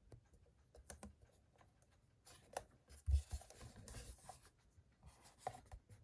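Hands handling a hard cardboard slip box: card rubbing and sliding against card, with light taps and a soft knock about three seconds in.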